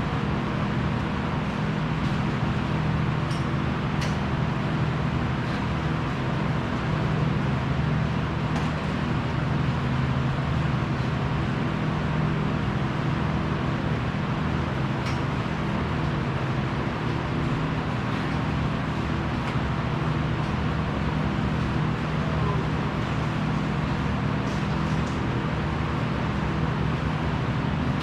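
Steady low mechanical hum of running machinery, with a few faint clicks and taps scattered through it.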